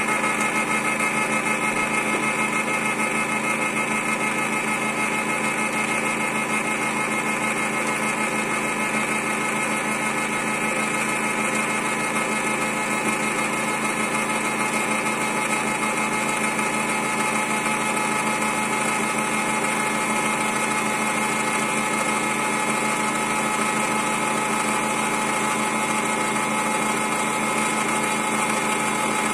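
Homemade CNC router spindle with a 6 mm end mill machining a wooden sphere as the blank turns on the rotary axis. The spindle motor and the cutting run as a steady mechanical drone with several even tones over a hiss.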